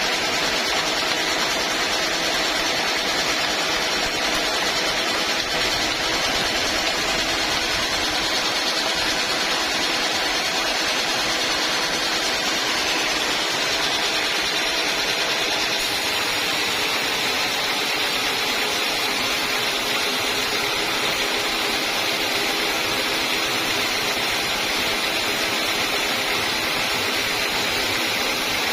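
Homemade band sawmill running steadily, its blade sawing through an old teak log with an even, unbroken hiss over the hum of the motor driving it.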